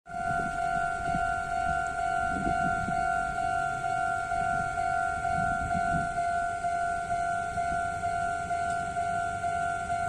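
Japanese railway level-crossing warning bell ringing its rapid, evenly repeated electronic "kan-kan" tone at one steady pitch, signalling that a train is approaching. Faint low rumbles come and go beneath it.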